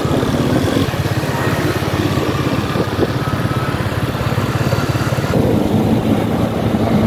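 Motorcycle engine running steadily, heard from the moving bike. A little past five seconds in, its low note gets stronger and the high hiss fades.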